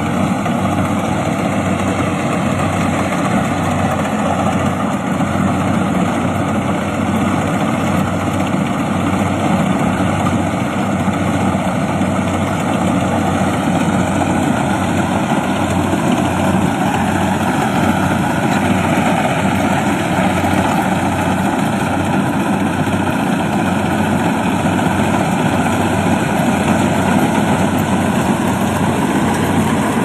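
Rice combine harvester running steadily while cutting rice: a loud, even mechanical noise from its engine and the turning reel, cutter and threshing works, with a low hum underneath.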